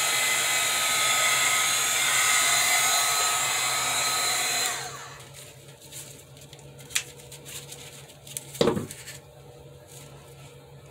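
Small handheld craft heat gun blowing steadily with a fan whine, switched off about four and a half seconds in and winding down. Then a few faint clicks and a soft thump.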